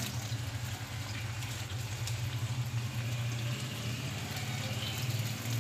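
A steady low mechanical hum, with faint sizzling from chicken, yogurt and sliced onions cooking in a pan.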